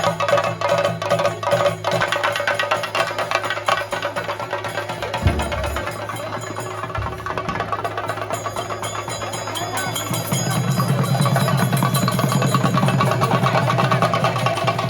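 Fast, dense drumming of the kind that accompanies a Theyyam performance, typically chenda drums played with sticks, with steady pitched tones over it. It grows louder about ten seconds in.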